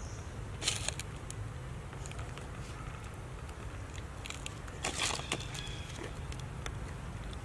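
Young macaque peeling and cracking a bit of dry food in its hands: short crackles twice, about a second in and again around five seconds in, over a steady low rumble.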